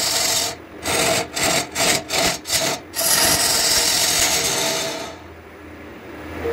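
Turning tool cutting into a spinning Albizia lebbeck bowl blank on a wood lathe, a loud rasping shaving noise broken by several short pauses as the tool comes off the wood. The cutting stops about five seconds in, leaving the quieter hum of the lathe.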